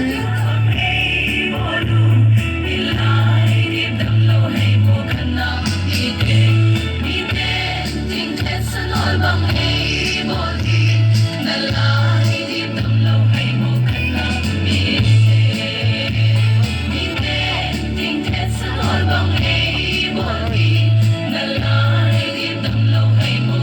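Music with group singing, a choir-like song over a steady, pulsing bass beat.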